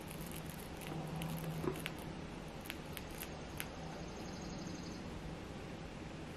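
Faint, scattered small ticks and scratches of a dermaplaning razor cutting through a wig's lace along the hairline, bunched between about one and four seconds in.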